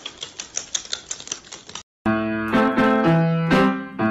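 Rapid, regular clicking, about six or seven a second, that cuts off abruptly just under two seconds in; then piano music starts and fills the rest.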